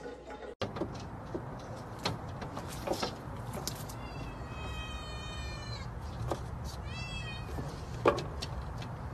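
A cat meowing twice, a long meow and then a shorter one. Between the meows come a few sharp clicks and rattles of window-blind slats as the cat pushes through them.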